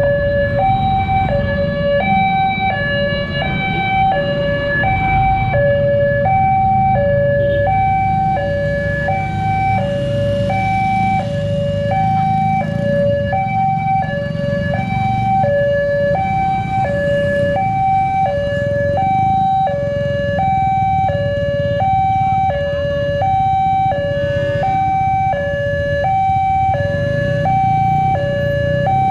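Railway level-crossing warning alarm sounding its electronic two-tone signal, a higher and a lower tone taking turns about every 0.7 seconds, as warning of an approaching train. A steady low rumble of road traffic runs underneath.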